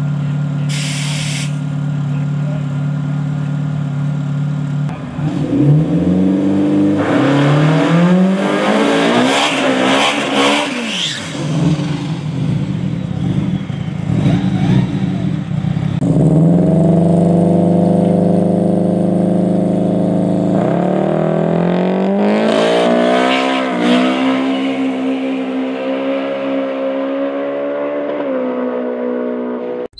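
Turbocharged drag car engine running, first at a steady lumpy idle, then revving up and down hard through a smoky burnout. It holds steady high revs on the line, then accelerates flat out down the strip, its pitch climbing and stepping through gear changes.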